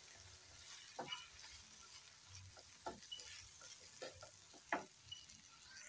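Faint sizzling of omena (small dried fish) frying with tomatoes in a frying pan, stirred with a spatula that scrapes and knocks against the pan several times.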